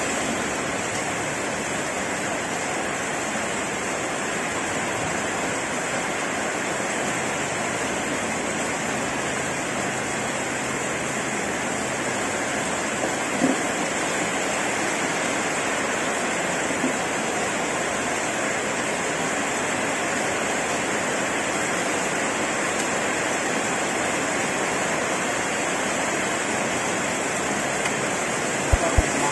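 Heavy rain pouring steadily onto a flooded paved road, a dense even hiss. A few sharp taps break through, one about halfway and two close together near the end.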